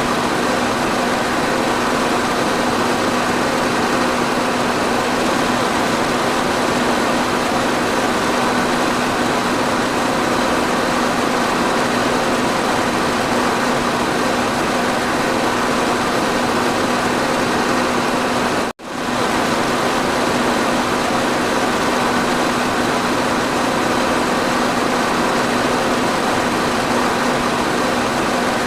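Electric fan running steadily: an even whooshing noise with a steady hum. It cuts out for an instant about two-thirds of the way through, then carries on unchanged.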